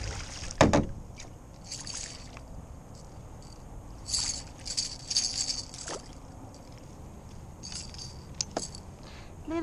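A small redfish thrashing and splashing at the surface beside a kayak as it is scooped into a landing net, with a sharp slap about half a second in. Then short bursts of splashing and dripping water as the net is lifted out and brought aboard.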